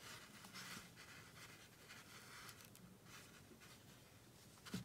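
Near silence with faint rustling of yarn being drawn over a crochet hook as a stitch is worked, and a soft thump near the end.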